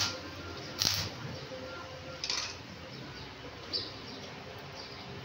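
Stick (arc) welder making short tack welds on a steel bar frame: a few brief crackling bursts of the arc about a second apart, fading toward the end, over a low steady hum.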